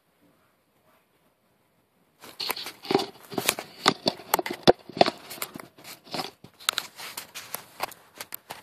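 Near silence for about two seconds, then a dense run of irregular clicks, crackles and rustling. This is close handling noise from a thin plastic cup and the phone being gripped and moved.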